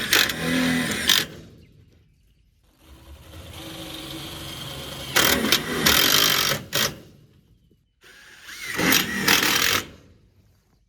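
Handheld power tool run in three bursts, the second building up to its loudest stretch before stopping.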